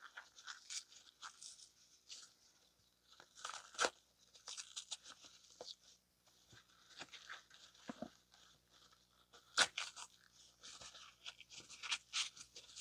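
Thin pleated paper element of an economy spin-on oil filter being ripped apart by hand: faint, irregular bursts of crunching and tearing, with sharper cracks about four seconds and nine and a half seconds in.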